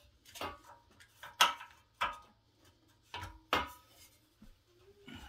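Metal clinking and knocking as a Honda Z50's exhaust pipe is worked into place against the engine and its mounting bolt. There are several sharp clinks with brief ringing, the loudest about a second and a half in.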